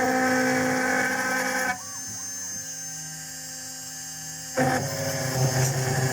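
Home-made CNC milling machine cutting aluminium, its spindle whining steadily over the cutting noise. The sound drops away abruptly for about three seconds in the middle, leaving only fainter motor tones, then comes back.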